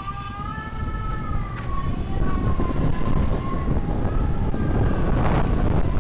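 A siren sounding one long wail that rises at first, then slowly falls and fades out about four seconds in. From about two seconds in, wind buffeting the microphone and road rumble grow louder as the scooter speeds up.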